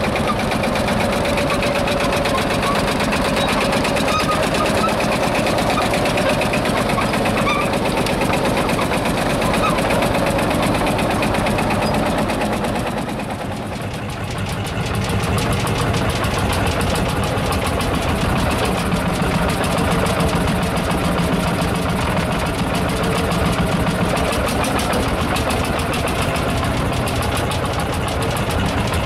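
Single-cylinder hot-bulb two-stroke tractor engine running with a steady, even beat. The level dips briefly about halfway through.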